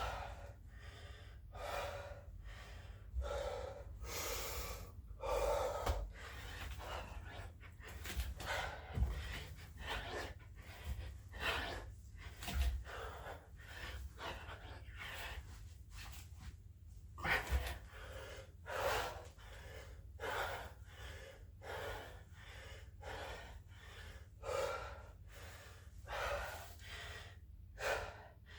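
A man breathing hard and gasping through a quick set of burpees, about one loud breath a second, with a few low thuds.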